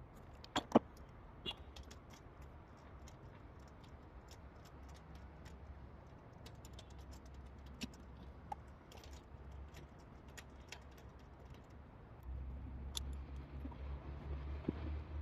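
Faint metallic clicks and taps of hand tools fitting new spark plugs into the engine, with two sharper clicks about half a second in. A low hum comes in near the end.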